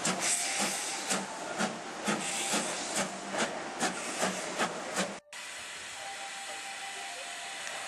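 BR Standard Class 4 tank locomotive 80072 working under steam, its exhaust chuffing evenly about two and a half beats a second as it moves off. After a sudden cut about five seconds in, a steady hiss of steam.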